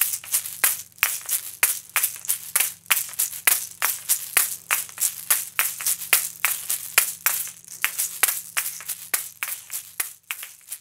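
Asalato shakers swung in both hands: a quick, steady rhythm of sharp clacks as the paired shells knock together, with the seeds rattling inside. The playing grows quieter near the end.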